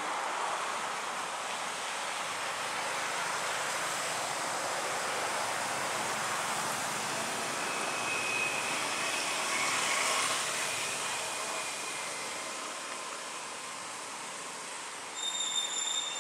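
Steady outdoor hiss of forest ambience, with a few short, high-pitched squeals near the end.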